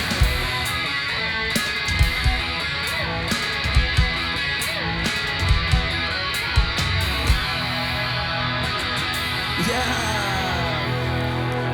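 Live rock band music: electric guitar (a Fender Telecaster) with a drum kit, the drums hitting hard with cymbal crashes. About two-thirds of the way through the drums stop and the guitar is left ringing on held notes.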